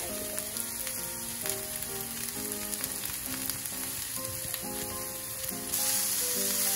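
Julienned carrot strips sizzling steadily in hot oil in a cast-iron skillet. The sizzle grows louder near the end as a utensil stirs the carrots.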